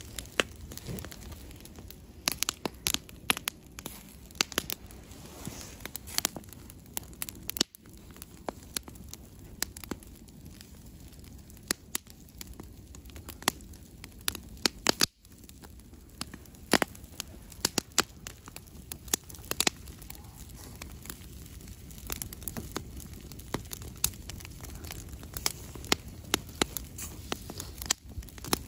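Wood campfire crackling, with sharp irregular pops and snaps from the burning sticks over a low steady rumble of the flames.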